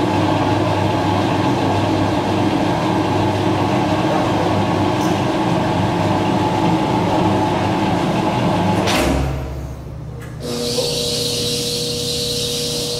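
Ransome 200P welding positioner's electric drive motor and gearbox running steadily with a dense mechanical rumble as the table moves. About nine seconds in it stops abruptly with a low thud. A second later a different steady hum with a clear single tone and a high hiss starts up.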